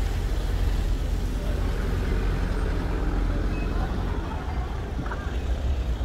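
City street ambience: a steady low rumble of road traffic, with faint voices of passersby.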